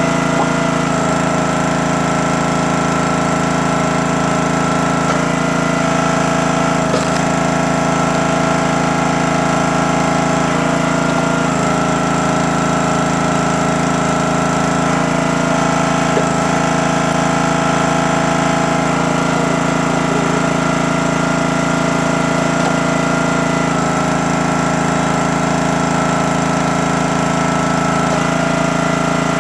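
Gas engine of a 28-ton hydraulic log splitter running steadily, its tone shifting slightly every several seconds as the splitter works, with a single short click about seven seconds in.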